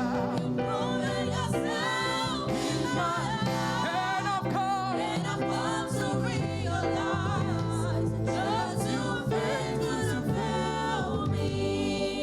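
Gospel choir singing a praise song with vibrato over steady keyboard and bass backing.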